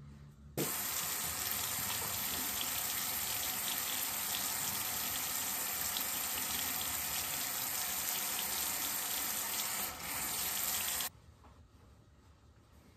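Bathroom sink faucet running steadily while hands splash water onto a face. The water comes on suddenly about half a second in and is shut off abruptly near the end.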